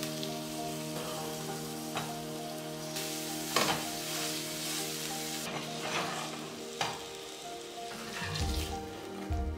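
Ground beef patty sizzling in oil in a nonstick frying pan, with a few sharp scrapes and taps of a metal slotted spatula as the meat is pressed flat. Soft background music plays underneath.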